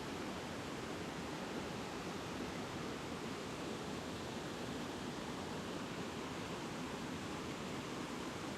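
Steady rushing of river water pouring over a small rocky drop into a pool, an even, unbroken noise.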